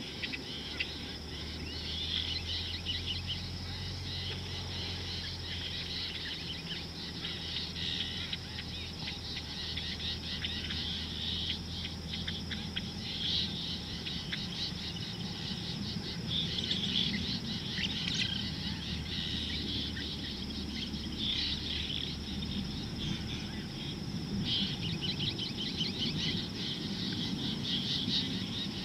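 Outdoor bush chorus: many birds chirping and calling in a dense, continuous patter over a steady high-pitched insect drone. A low steady hum underneath fades out about two-thirds of the way through.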